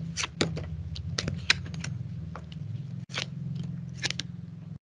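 Tarot cards being handled and laid out: a string of irregular light clicks and snaps over a steady low hum.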